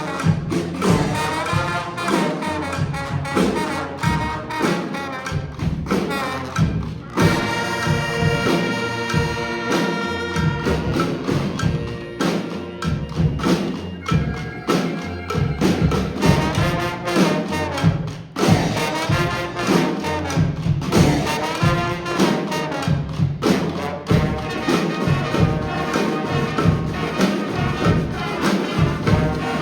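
Brass street band playing, horns over drums and percussion, with a long held horn chord about seven seconds in.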